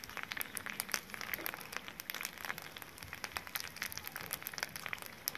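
Food sizzling and crackling on a charcoal grill, a steady dense patter of small pops.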